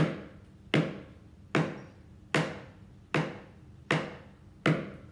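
A homemade pretend drum struck seven times at a steady medium beat, a little over one hit a second, each a sharp knock that dies away quickly.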